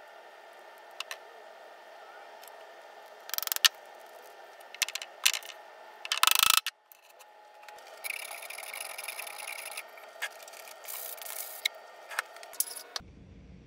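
Handling noises of wooden dowels: scattered light clicks and knocks, with two louder bursts of scraping about three and a half and six and a half seconds in, as a glued dowel handle is fitted into a hole drilled in a wooden rod.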